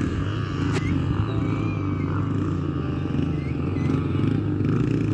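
Motocross dirt bike engines running at a steady, unchanging pitch.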